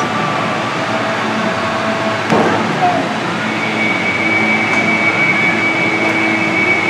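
Steady whooshing air noise in an indoor roller-hockey rink, with indistinct voices of players and a single sharp knock about two seconds in.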